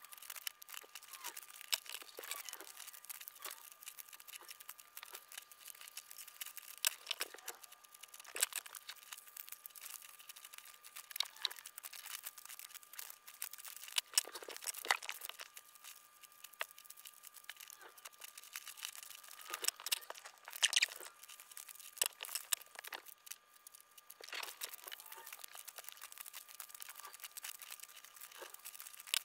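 Scissors snipping through a sheet of paper in short, irregular cuts, with the paper rustling and crinkling as it is turned and handled.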